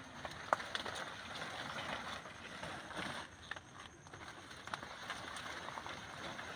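Water hyacinth leaves and stems rustling and crackling as a hand pushes in among them and pulls up stalks, with several sharp snaps or clicks.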